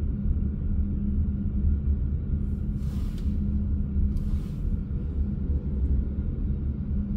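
Steady low rumble of a car driving slowly, heard from inside the car, with two short hisses about three and four seconds in.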